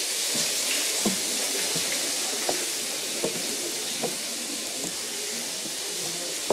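Steady hiss of running water, with a few faint soft knocks scattered through it.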